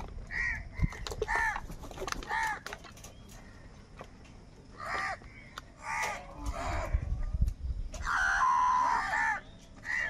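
House crows cawing: short harsh caws from several birds, with a lull in the middle and a denser run of overlapping caws near the end.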